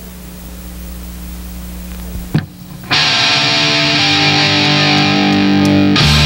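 A low steady hum builds for about two seconds, then a sharp click, and a distorted electric guitar chord rings out about three seconds in. About six seconds in, the full rock trio of electric guitar, bass and drums kicks in as the song starts.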